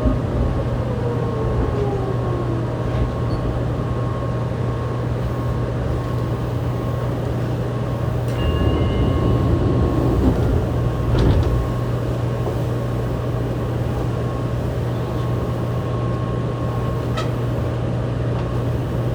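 Fukuoka City Subway 2000-series car with a Hitachi GTO-VVVF inverter braking to a stop: the inverter's falling whine dies away in the first couple of seconds. It then stands with a steady hum. Around nine to eleven seconds in there is a louder rumble, a short high tone and a knock, as the doors open at the station.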